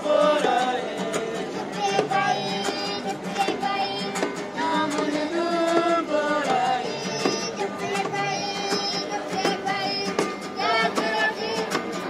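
A small group of children and women singing a song together, with a plucked string instrument accompanying.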